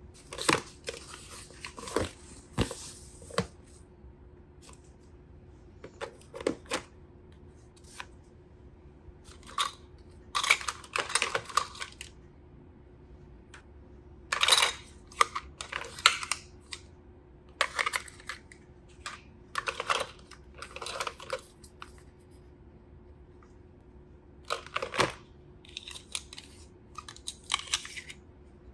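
Packaging being unwrapped by hand: irregular bouts of tearing and crinkling, with sharp clicks and taps in between and short pauses.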